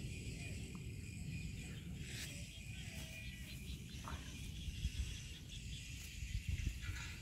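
Grassland ambience: insects chirping steadily under a low, fluctuating wind rumble on the microphone, with a few faint short clicks.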